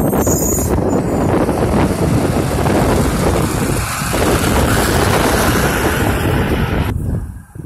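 Automated side-loader garbage truck driving past close by, its diesel engine and tyres loud and steady. The sound falls away sharply about seven seconds in.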